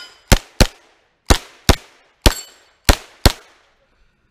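Norinco 320 Uzi-clone semi-automatic carbine fired in quick pairs: seven sharp shots, each pair about a third of a second apart with slightly longer gaps between pairs.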